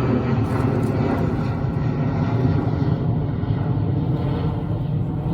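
A steady engine drone, easing off slightly about three seconds in.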